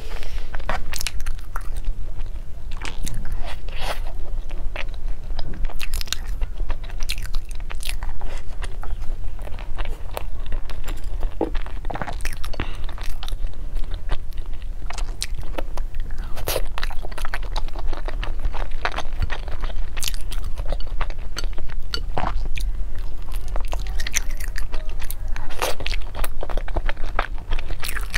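Close-miked chewing of a flaky taro-paste pastry: many small, irregular crunches and wet mouth clicks.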